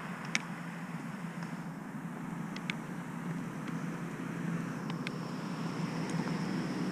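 Steady wind and rolling noise on a moving action camera travelling along a paved path, with a constant low hum underneath and a few brief faint ticks.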